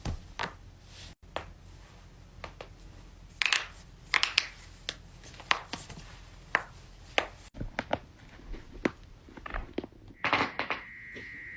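Human joints cracking: a string of sharp pops and cracks, some single and some in quick pairs, with a louder cluster near the end.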